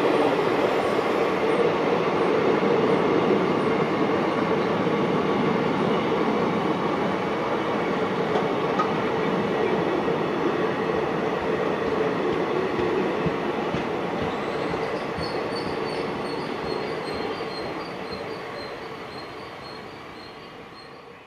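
Passenger train coaches rolling past at speed, a steady wheel-on-rail rumble with clicks over the rail joints. It fades away over the last few seconds as the end of the train recedes.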